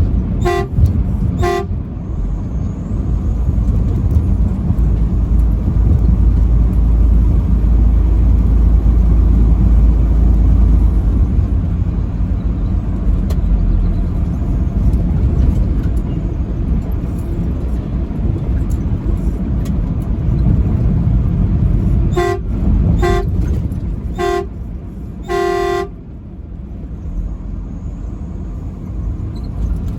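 Truck horn sounding in short pitched toots: two near the start, then three quick toots and one longer blast some twenty seconds later. A steady low rumble of the moving vehicle runs underneath.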